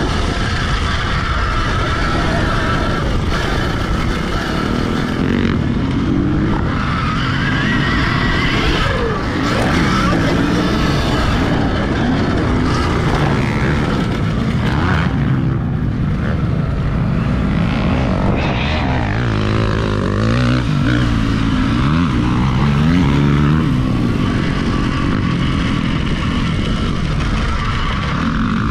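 Wind buffeting a helmet-mounted camera at speed over the electric whine of an Alta Redshift MXR dirt bike's motor, which keeps rising and falling in pitch as the rider accelerates and backs off.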